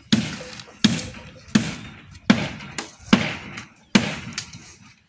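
Hammer blows struck at a steady pace, about one every three-quarters of a second: six sharp knocks, each with a short ringing tail. They stop about four seconds in.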